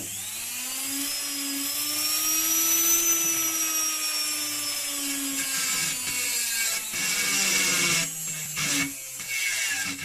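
Washing-machine universal (brushed commutator) motor switched straight onto 220 V mains with no load and no speed controller: a click, then it spins up with a rising whine over about three seconds and runs at full speed with a hiss from the brushes, its pitch sagging slightly and breaking up near the end.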